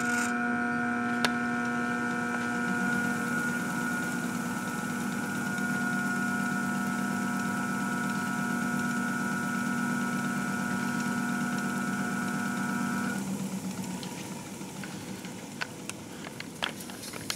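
Belt-driven crankshaft balancing machine spinning a 454 big block Chevy crankshaft with bob weights fitted, to read its imbalance. It makes a steady electric whine and hum. About 13 seconds in the drive shuts off and the sound drops away while the crank coasts down.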